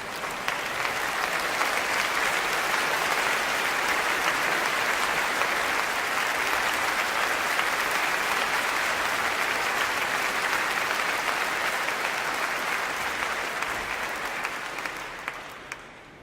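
Audience applause: many hands clapping, swelling in at the start, holding steady, and fading away near the end.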